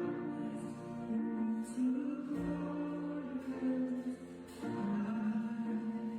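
Church worship band playing a slow song, with voices singing held notes over the instruments.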